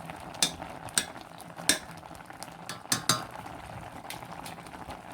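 A metal spoon clinking and scraping against a pot, about five sharp knocks, as foam is skimmed off jam. Under it, a pot of orange and lemon jam bubbles steadily at the boil.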